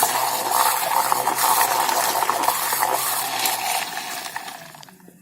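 Electric grinder running at full speed, blending biscuits into milk. Its motor hum and the churning of the liquid are steady, then the motor is switched off about four seconds in and the sound dies away.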